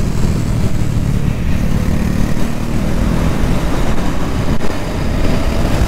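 Royal Enfield Interceptor 650's parallel-twin engine running steadily at a cruise, mixed with road and wind noise.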